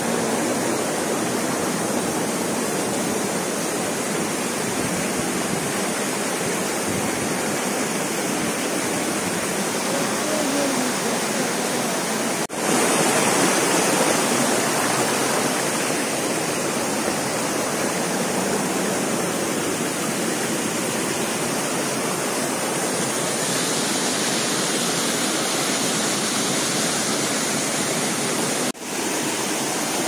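Waterfall rushing steadily, a loud even hiss of falling water. It breaks off for an instant twice, about twelve seconds in and near the end.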